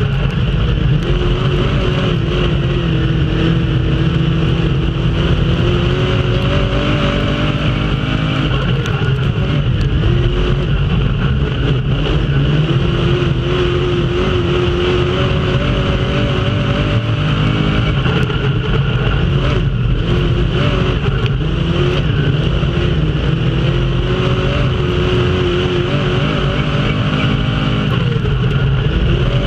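Dirt-track race car's engine heard from inside the cockpit at racing speed, loud and steady, its pitch climbing and dropping again every several seconds as it works around the track, over a constant rumble of wind and track noise.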